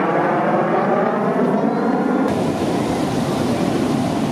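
Loud roar of an aircraft flying past, its tone sweeping slowly as it goes by. A little over two seconds in, the sound changes abruptly to a harsher, hissier roar.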